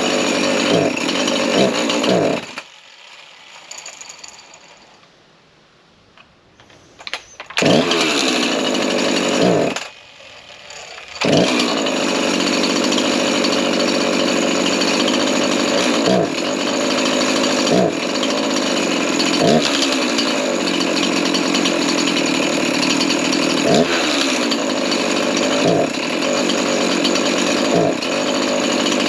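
Rebuilt Husqvarna 353 two-stroke chainsaw, fresh piston and cylinder, running at high revs while being tuned on its carburettor. It drops away for about five seconds, runs again briefly, drops once more for about a second, then runs steadily at high speed with short dips about every two seconds.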